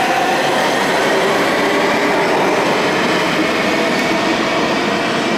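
A New York City Subway R142A train pulling out of an underground station: a loud, steady rumble of the cars running on the rails, with a faint motor whine.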